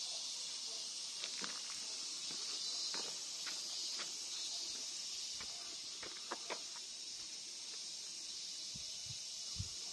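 Insects in the surrounding trees droning steadily at a high pitch, with scattered sharp footstep ticks on the path and a few low thumps near the end.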